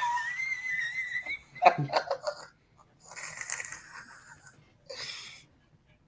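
A person's high, wheezy vocal sounds: a thin squeal held for about a second, then short breathy, hissing bursts.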